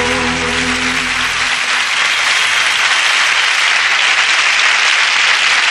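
The last held chord of a pop song with choir ends about a second and a half in, and a studio audience's applause takes over, swelling a little.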